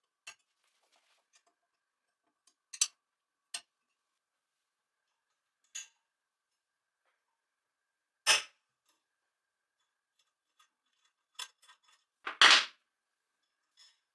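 Scattered metallic clicks and clinks as a steel hex key and small screws are handled against the aluminium frame of a desktop CNC router, with pauses between them. The loudest is a short clatter about twelve seconds in.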